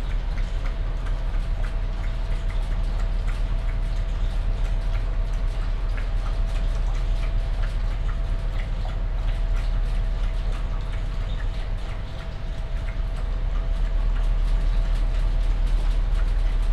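Dog lapping water from a metal bowl, small wet ticks over the steady low rumble and hum of the ferry's engines.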